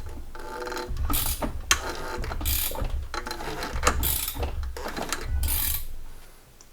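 Socket ratchet turning the crankshaft of a 1998 Honda Civic engine by hand to bring it round 180 degrees for valve lash adjustment: a handful of strokes about a second apart, each with ratchet clicking, over a low rumble.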